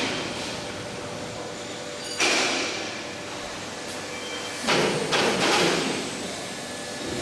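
CNC pipe bending machine working through its bending cycle: a steady machine hum with short whooshing bursts about every two to three seconds, the longest a double burst a little past halfway.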